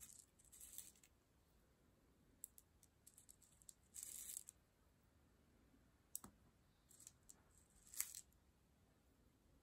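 Faint clicking and rattling of small seed beads as a needle picks through them in a clear plastic bead tray. The clicks come in short, scattered bits, with a longer rattle about four seconds in.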